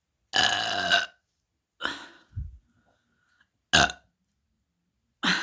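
A person burping several times: a long burp about half a second in, shorter ones around two and four seconds, and another starting near the end.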